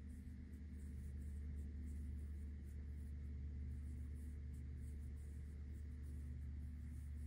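Faint, irregular scratchy rustling of a steel crochet hook pulling cotton thread through loops while chain stitches are made, over a steady low hum.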